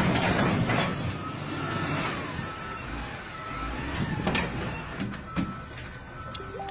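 A dump truck with its loaded bed raised tipping over onto its side: a vehicle engine runs under a steady rumble, with a few sharp knocks from about four seconds in as the truck goes over.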